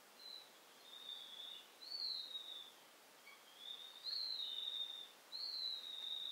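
A wild songbird singing a run of clear, high whistled phrases, most of them sliding downward in pitch, over a faint steady background hiss.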